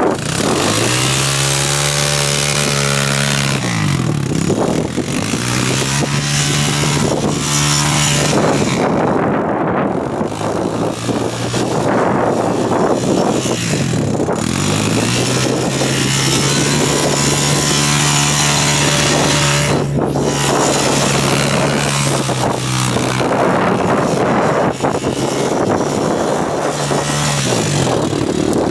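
ATV engine running under throttle, its pitch climbing and dropping several times as it speeds up and eases off. Heavy wind noise on the microphone runs under it.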